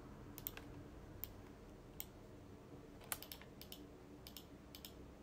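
Faint clicks of a computer mouse and keyboard, about a dozen at uneven intervals, over a low steady hum.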